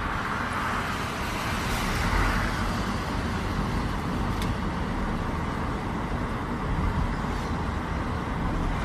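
Steady rush of wind and road noise at the open window of a car moving at speed, with a low rumble of wind buffeting.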